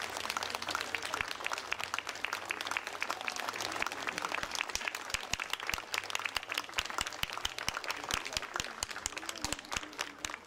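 Audience applauding: many hands clapping at a steady level, with a few voices faintly underneath.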